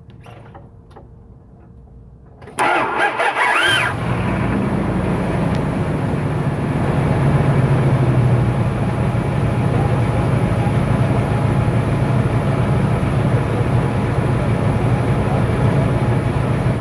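1997 Dodge Ram 1500's 5.9 L (360) Magnum V8 being started: the starter cranks with a rising whine for about a second, then the engine catches and settles into a steady idle. The whine at start-up is the odd noise the owner cannot identify, and it fades once the engine is running.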